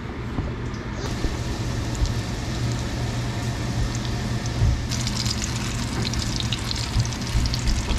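Panko-breaded porgy fillets sizzling and crackling in hot vegetable oil in a cast-iron skillet; the sizzle grows brighter about five seconds in. A steady low hum runs underneath.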